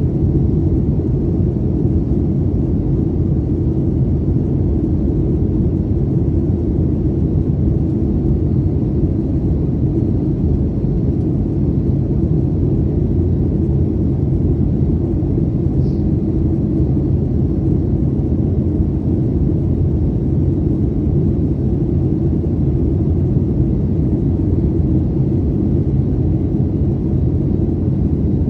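Steady low cabin rumble inside a Boeing 737 in flight: the engines and airflow heard from a passenger seat during the approach, with a faint tick about halfway through.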